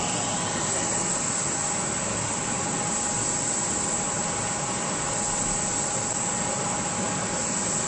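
Screen-printing workshop machinery running steadily: an even hiss with a steady mid-pitched hum, unchanging throughout.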